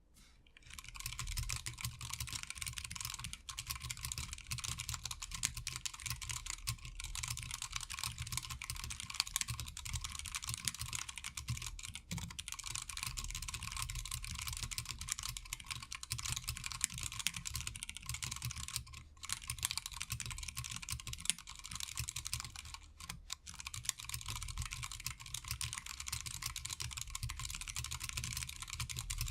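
Fast, continuous typing on a TADA68 mechanical keyboard with Zealios 65g tactile switches and PBT keycaps, keystrokes clacking rapidly. It starts about a second in and has a few brief pauses.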